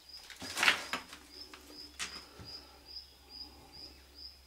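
A brief loud rustling flutter about half a second in, as a black redstart fledgling is handled, with a sharp click near two seconds. Throughout, a short high chirp repeats steadily a little over twice a second.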